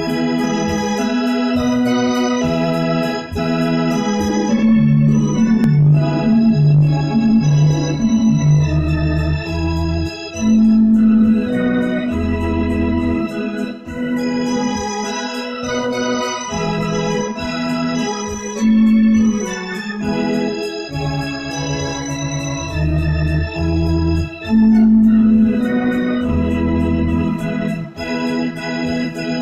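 Electronic arranger keyboard played in an organ voice: held chords that change every second or so over a deep bass line.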